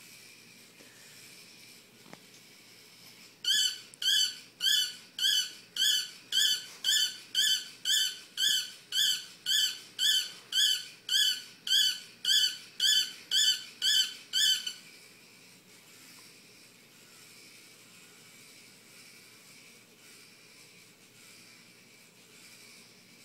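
Small robot toy dog's electronic sound: a regular string of about twenty short, high squeaky chirps, about two a second, starting a few seconds in and stopping after about eleven seconds.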